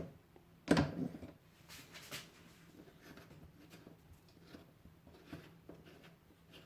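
Adjustable wrench working the locknut of a single-lever faucet: a sharp metal knock about two-thirds of a second in, then a few faint clicks and quiet scraping as the nut is turned off.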